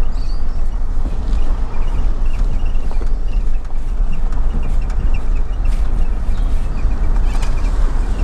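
Vehicle driving along a dirt campground road, with a steady low engine and road rumble. Faint bird chirps sound over it.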